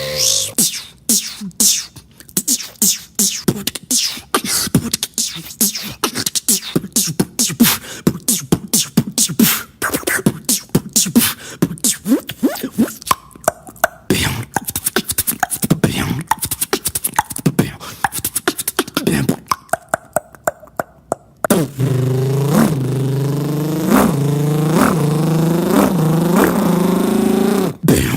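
Beatboxing: a fast run of mouth clicks and percussive hits, then from about three-quarters of the way in a held, buzzing vocal tone that bends up and down in pitch.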